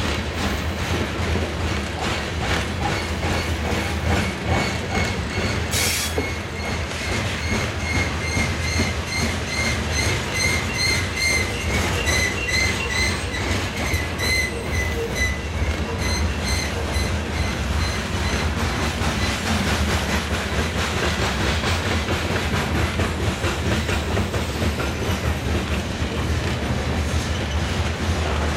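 Loaded covered hopper cars of a freight train rolling past: a steady rumble with rapid clicking from the wheels on the rails. A single sharp knock comes about six seconds in, followed by a pulsing, high-pitched squeal from the wheels that fades out about sixteen seconds in.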